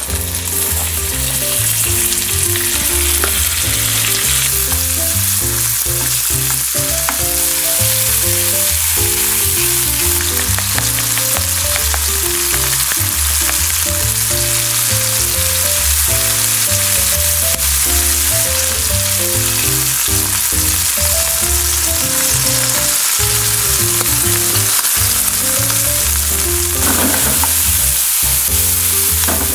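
Chicken gizzards frying in a pan with a loud, steady sizzle throughout, over background music.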